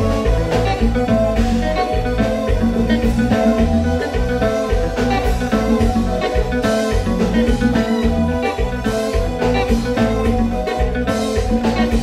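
Live band playing, with electric guitar, bass guitar and drum kit keeping a steady beat.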